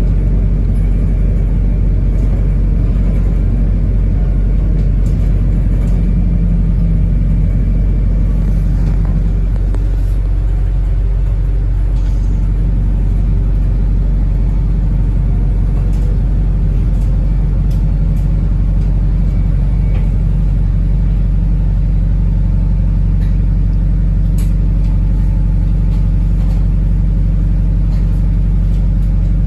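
Wrightbus New Routemaster (NB4L) hybrid double-decker heard from inside the cabin on the move: a steady low drone with a few light rattles.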